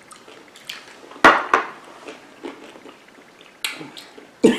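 A few separate sharp clicks and clinks of tableware while eating, like a utensil or plate being knocked, the loudest about a second in.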